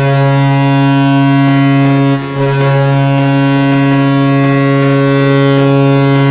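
Toronto Maple Leafs goal horn blasting loudly with a deep, steady tone. It gives one blast of about two seconds, a brief break, then a longer blast of about four seconds.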